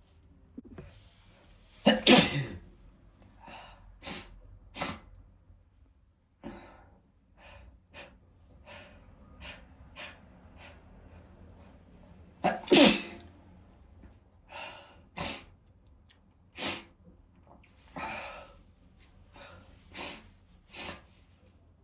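A person sneezing hard twice, about two seconds in and again about eleven seconds later, with short breaths in between.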